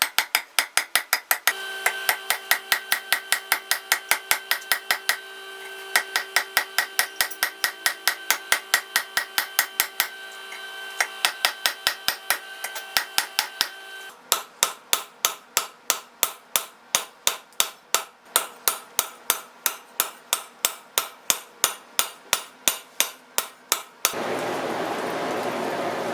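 Rapid, evenly paced hammer blows on steel at an anvil while forging a blade, about four strikes a second. For the first half the metal rings with each blow; later the blows sound duller. Near the end the hammering stops and a steady rushing noise takes over.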